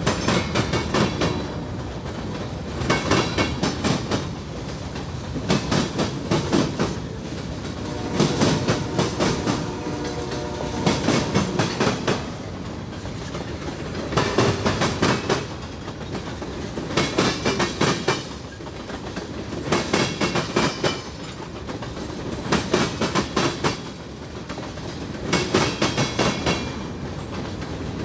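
Freight train rolling slowly past, its wheels clicking over rail joints in groups of clacks about every three seconds over a steady rumble of the cars.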